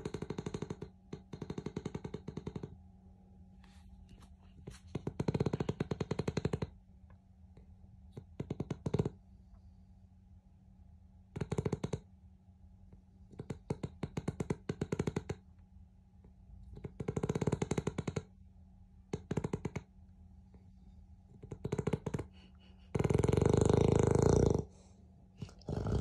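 Beagle snoring loudly in its sleep: a string of rattling, fluttering snores a second or two apart, the longest and loudest near the end, like a motorbike.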